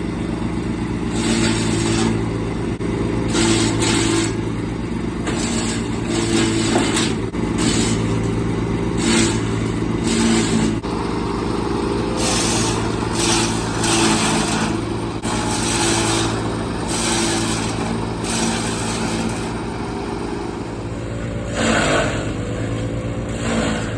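52cc two-stroke brush cutter (string-trimmer type) running at high speed, its engine surging again and again as the blade cuts through brush and small trees.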